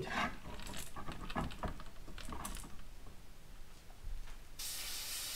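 Small clicks and knocks of the metal lure clamp and an Iwata HP-C airbrush being handled, then, near the end, compressed air from the airbrush starts to hiss steadily and suddenly.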